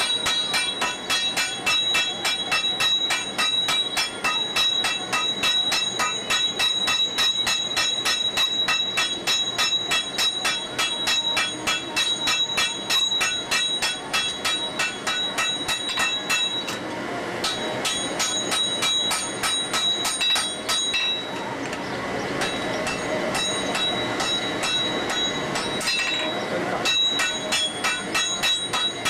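Blacksmith's hammer work on red-hot iron at an anvil: fast, evenly spaced metal-on-metal strikes, about five a second, each ringing. A rushing hiss joins in about halfway through and fades again near the end.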